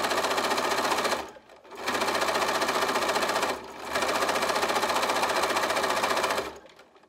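Bernina Aurora 440 QE sewing machine running at a fast, even stitch through coils of fabric-wrapped rope. It pauses briefly about a second in, slows for a moment just before four seconds, and stops near the end.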